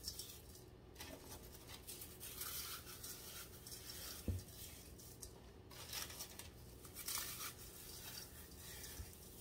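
Ritz crackers being crushed by hand in a bowl: faint, irregular crunching and crumbling, with a soft knock about four seconds in.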